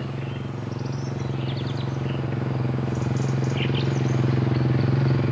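Quad bike engine running steadily at low speed, its drone growing slowly louder as the bike comes closer. Birds chirp briefly a couple of times over it.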